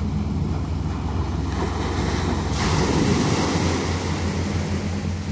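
Small waves breaking and washing up a sandy beach, with one louder wash of surf about two and a half seconds in, and wind buffeting the microphone.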